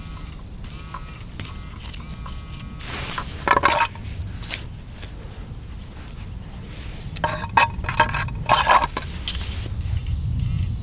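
Metal detector giving a few short signal tones over steady wind and rain rumble, followed by two spells of loud crunching as a spade digs into the soil for the target.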